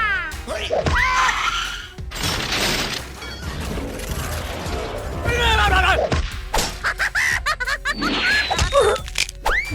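Edited cartoon sound effects: glass shattering and a run of sharp impacts and clicks, with quick rising and falling sweeps, over background music.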